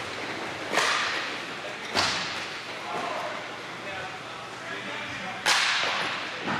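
Three sharp smacks of hockey sticks and puck, each echoing in a large hall: one about a second in, one about two seconds in, and one a little before the end.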